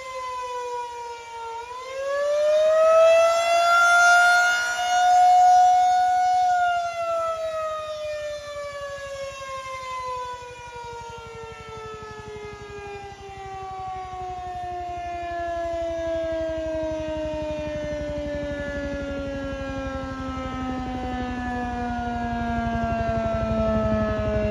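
Federal Signal 2001-SRN rotating electromechanical siren sounding its attack signal: the pitch dips, climbs again about a second and a half in and holds high for a few seconds, then winds slowly down in a long falling wail to a low growl near the end.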